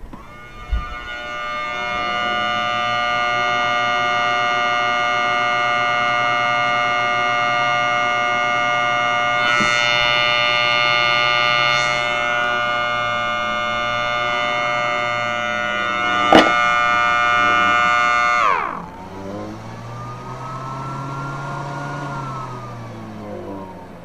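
Homemade miniature Thunderbolt tornado siren sounding a loud, steady chord of several tones without rotation, with a sharp click about 16 seconds in. Around 18 seconds the pitch drops steeply as the blower cuts out, then a weaker tone winds up and back down: the blower is turning on and off, which the owner thinks means it probably needs a new motor.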